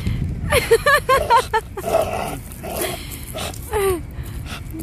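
A dog whining and yipping while it hangs by its teeth from a tree branch, with a quick run of wavering high calls about a second in and a falling whine near the end.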